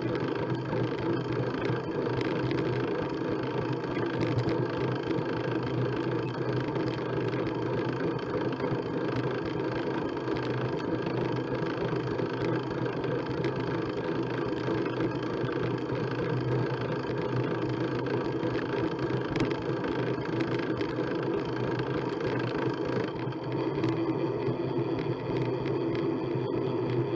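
Steady rush of wind over a bike-mounted action camera's microphone together with bicycle tyre noise on a concrete path, at a sprint of about 23 mph, with occasional faint ticks. The hiss thins a little near the end as the rider eases off.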